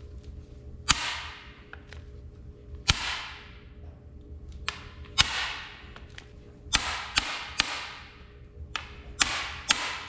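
Hammer blows on steel, about ten sharp strikes at uneven intervals, each leaving a bright metallic ring that fades over about a second.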